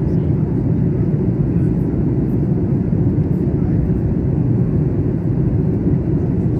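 Steady low rumble of jet engines and rushing air as heard inside the cabin of a Boeing 737 airliner in flight.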